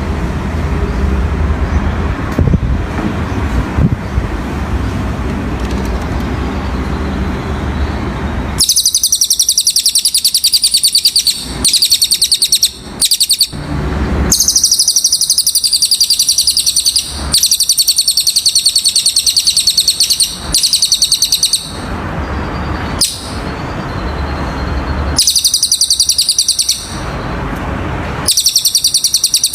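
A cililin songbird singing loud, very fast high-pitched trills in phrases of one to three seconds with short pauses between them. The song begins about eight seconds in, over a steady low background rumble.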